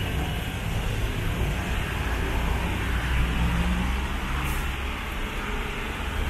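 City road traffic: a steady low rumble of vehicle engines with tyre noise, swelling slightly a little past the middle as a vehicle passes.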